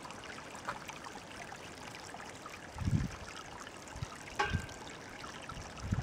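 Faint steady trickle of meltwater running and dripping off the icicles, broken by two short low thumps about three and four and a half seconds in, the second with a sharp click.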